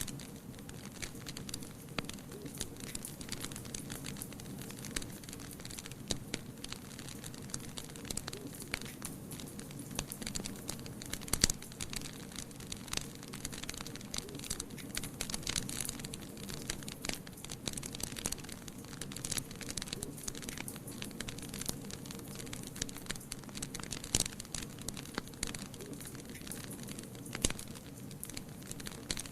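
Wood fire in a fireplace crackling, with frequent sharp pops over a steady low rush of flame; one louder pop about eleven seconds in.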